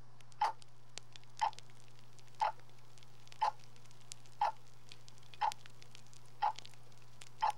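Steady ticking, one soft tick about every second, over a constant low hum and faint scattered crackle.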